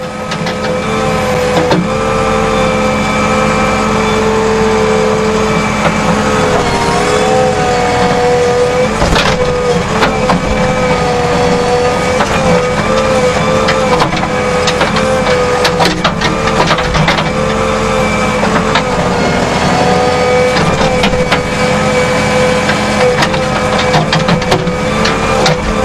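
JCB 3DX backhoe loader's diesel engine running under load, heard from the operator's seat, while the backhoe arm digs. Its note dips and recovers as the hydraulics are worked, with scattered knocks and scrapes throughout.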